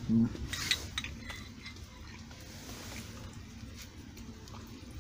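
A few light clinks of crockery and cutlery on a breakfast table in the first two seconds, then only low background noise.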